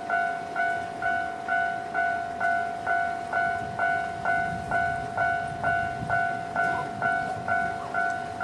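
Japanese level-crossing electronic warning bell ringing its normal two-tone "kan-kan" chime, struck about twice a second without a break. The low rumble of a passing train swells in the middle.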